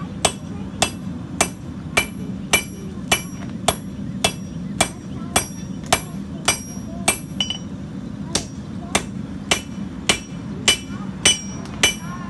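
Hand hammer striking red-hot 1084 high-carbon steel on an anvil, forging out a knife blade. The blows fall in a steady rhythm of a little under two a second, each with a short metallic ring, with a break of about a second just past the middle.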